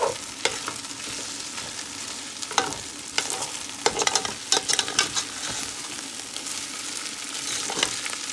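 Chopped okra frying in oil in a stainless steel pot, sizzling steadily, while a metal spoon stirs it and scrapes and clicks against the pot, the clicks most frequent between about two and a half and five seconds in.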